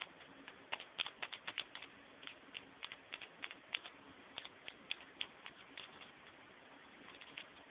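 Fingertips wearing paper finger puppets tapping on a wooden tabletop as they are walked along: light, irregular clicks, several a second, thinning out after about six seconds.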